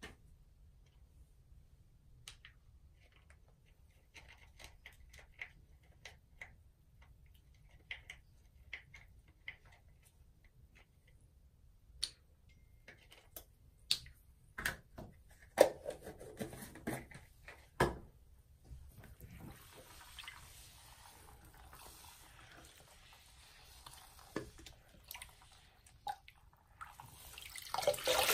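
Scattered drips and small splashes into shallow water in a sink holding a soaked sponge, thickening into a run of splashes about halfway through as soap is added. Near the end a soapy sponge is squeezed and water gushes out of it.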